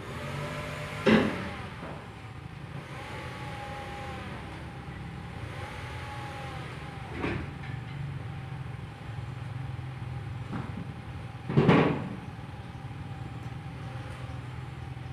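Tow truck engine running steadily with a thin steady whine over it, while a car is loaded onto it. Loud clanks come about a second in and again near twelve seconds in, with a few fainter knocks between.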